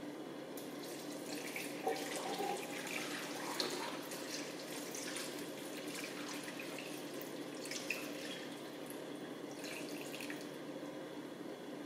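Water poured from a plastic measuring pitcher into a Dutch oven of pig feet, ears, hocks and chopped vegetables, splashing unevenly onto the food as the pour goes on, tailing off near the end.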